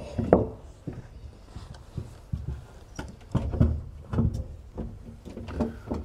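Dragon stone rocks and wood being shifted and set down in an empty glass aquarium: irregular knocks and scrapes of stone on the glass bottom.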